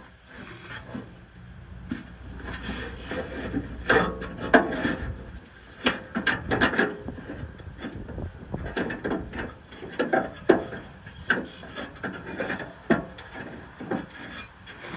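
Irregular clicks, knocks and scraping as the lock and latch parts inside a 2000 Ford Ranger pickup's tailgate are handled and worked on.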